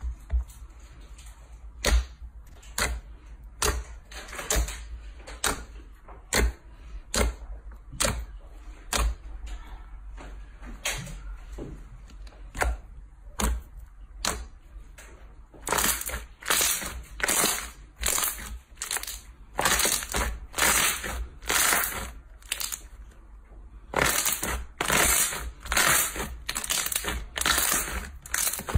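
Slime being squeezed and pressed by hand close to the microphone, giving a long run of short sharp crackling clicks and pops. They come about one or two a second at first, then faster and louder in two clusters in the second half.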